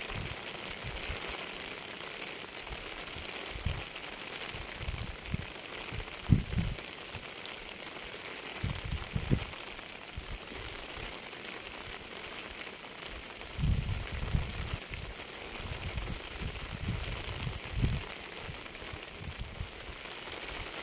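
Steady rain falling with an even hiss, broken by irregular dull low thumps, heavier around the middle and later on.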